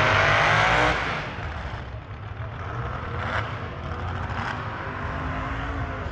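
Drag racing car's engine running at high revs, loudest in about the first second, then dropping away to a lower, steady engine sound.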